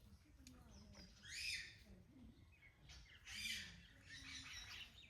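Chickens clucking faintly, with two brief, louder high-pitched calls about a second and a half and three and a half seconds in.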